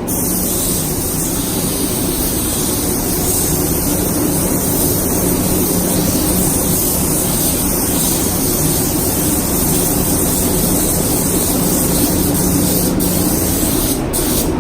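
Air spray gun spraying primer: a steady hiss of air and atomised paint, with a couple of brief breaks near the end where the trigger is let off. A steady low hum runs underneath.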